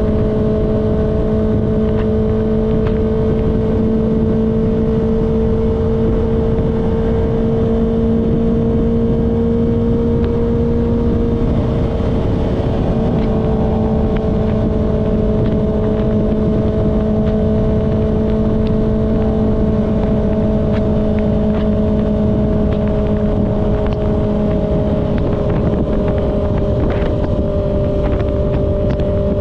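Kawasaki ZX-6R's inline-four engine running at a steady cruise over wind rush. Its pitch creeps up slightly, wavers briefly about eleven seconds in, then eases down a little near the end.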